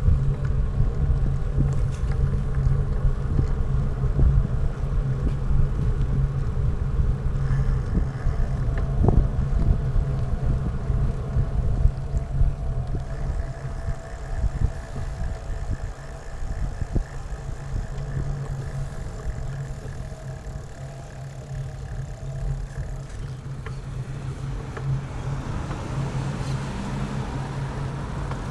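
Steady low rumble of vehicle and road noise during a ride, with faint steady tones coming in for several seconds in the middle.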